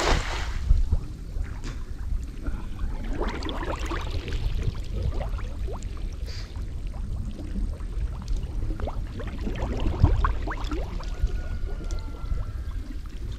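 Shallow water sloshing and splashing as people wade through it, in irregular clusters of splashes over a low, steady rumble.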